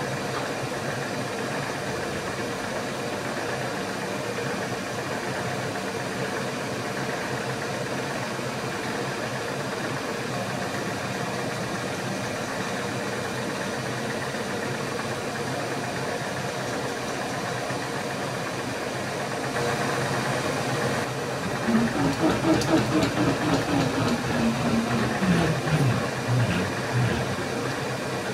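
Milling machine spindle running steadily with a centre drill fitted, a constant motor hum. About three-quarters of the way through the sound grows louder and uneven, with a tone sliding down in pitch.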